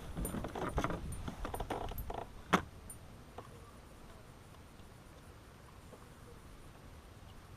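Rustling and small knocks of a freshly landed largemouth bass being handled aboard a fishing kayak, with one sharp click about two and a half seconds in, then only quiet background.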